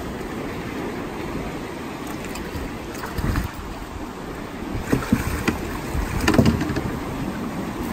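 Hooked fish thrashing and splashing at the surface alongside the boat as it is brought in on the line, in a few short bursts about three, five and six seconds in, over a steady rush of wind and water.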